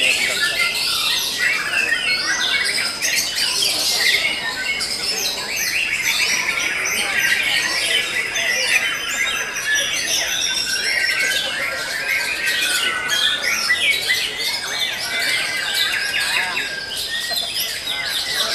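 White-rumped shamas singing, several birds at once, their rapid whistled phrases and chirps overlapping into a dense, continuous chorus.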